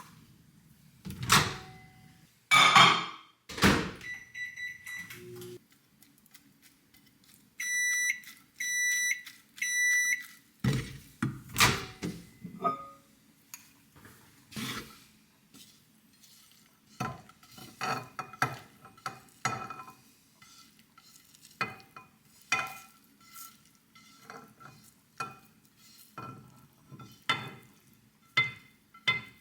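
Household handling noises: loud knocks and thuds in the first few seconds, then three evenly spaced electronic beeps from an appliance about eight seconds in, followed by a long run of lighter taps and clinks like dishes and utensils being handled.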